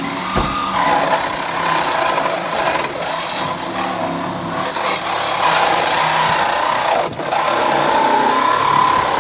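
A hydraulic rescue tool (jaws of life) working on a car's door pillar, driven by an engine-powered hydraulic pump: a steady whine that wavers up and down over the engine's hum, with a brief break about seven seconds in.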